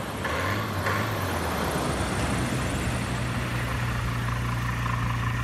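Light single-engine SuperSTOL bush plane's propeller and engine droning steadily as it touches down and rolls out on the beach.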